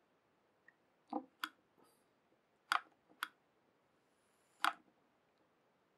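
A handful of sharp, faint clicks and light taps, about five spread over four seconds, from small parts being handled on a desk while e-liquid is dripped onto the cotton wick of a rebuildable vape atomizer.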